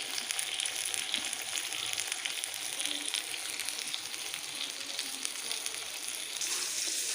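A whole fish frying in a shallow pan of oil and butter, a steady crackling sizzle as it finishes cooking.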